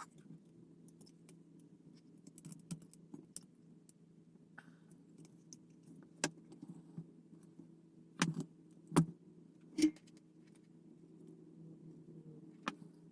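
Scattered small clicks and taps of wire leads and small parts being handled while connecting negative leads for LED lights, with several sharper clicks in the second half, over a faint steady hum.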